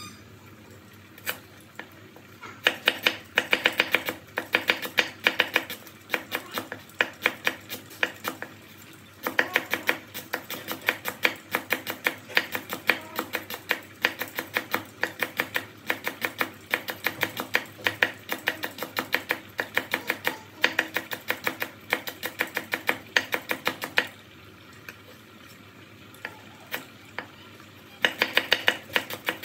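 Large knife slicing lemongrass stalks into thin rings on a wooden cutting board: quick, even knocks of the blade on the board, about four or five a second, in long runs broken by a pause of a few seconds near the end.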